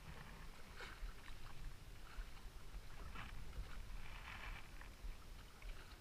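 Fishing boat at sea: a low rumble with irregular rushes and splashes of water.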